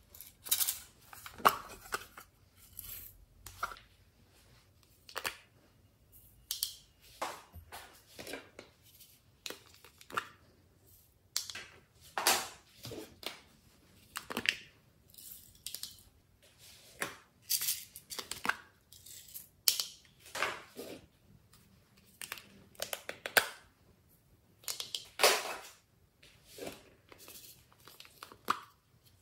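Hands handling small plastic slime containers, making irregular crinkling and peeling sounds, about one or two short bursts a second.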